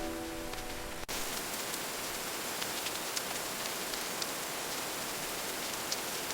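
Steady rain hiss with faint scattered drip ticks, cutting in abruptly about a second in as soft music fades out.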